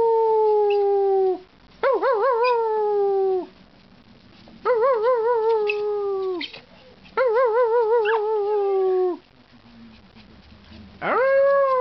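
Small long-haired dog howling: four long howls of about two seconds each with short pauses between, sliding down slightly at the end, the middle ones wavering in pitch, and a fifth starting near the end.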